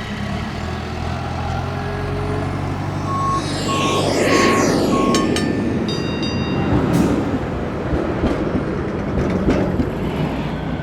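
Heavy vehicle running with a steady engine hum, then a series of four or five evenly spaced electronic beeps about three seconds in, followed by a rough rattling rumble with scattered knocks.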